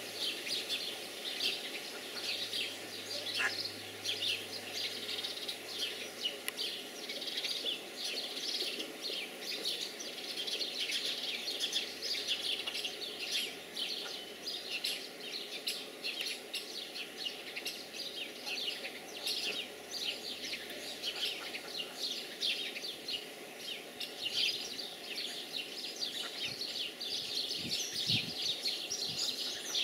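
Ducklings peeping constantly, many short high chirps overlapping without a break.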